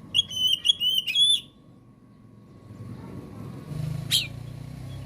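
Oriental magpie-robin singing a quick run of about six clear, whistled notes, then a single sharp call note about four seconds in, over a low background hum.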